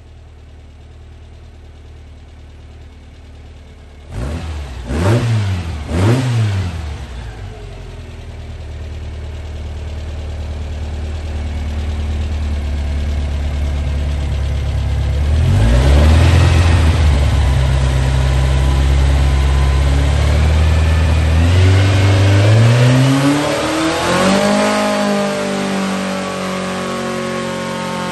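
2332cc air-cooled VW flat-four with dual 44 Weber carburetors idling, blipped twice about five seconds in, then revved up in steps to a high, held rpm that eases off slightly near the end. It pulls cleanly to high rpm now that a main jet that sat high, running rich and fouling a plug, has been properly seated.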